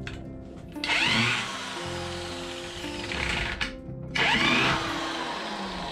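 Electric drill run into a wooden 2x4 brace in two short bursts, about a second in and again past four seconds, each whine rising and falling in pitch. Background music plays throughout.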